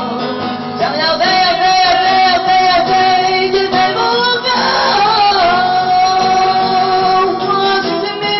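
Song sung over an acoustic guitar, the voice holding two long notes, one after the other.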